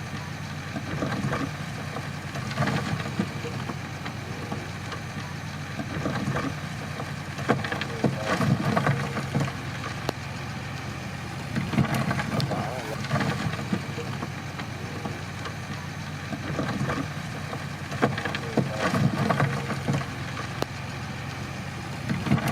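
Crawler bulldozer's diesel engine running steadily, with louder, rougher bursts every few seconds.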